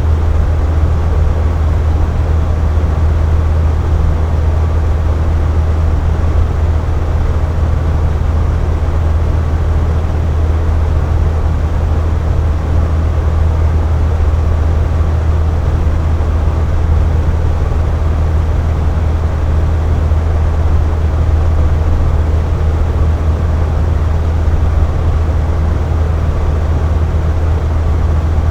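Air conditioner running steadily: a constant low hum with an even rush of air above it.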